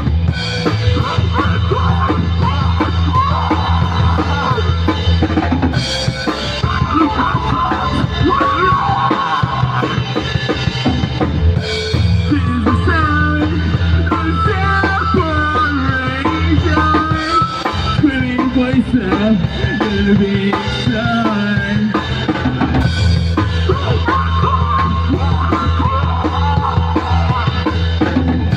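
Rock band playing an instrumental section: drum kit with snare and bass drum, bass guitar, and a lead melody that glides and bends, most likely a lead guitar solo.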